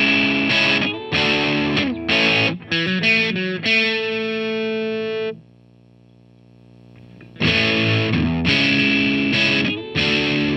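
Electric guitar played through a Schu-Tone Gaslight overdrive pedal, a 5F6 Tweed Bassman-style amp-in-a-box, strummed in short distorted chord stabs. One chord rings out about four seconds in and stops at about five and a half seconds. After a gap of about two seconds, the strumming starts again.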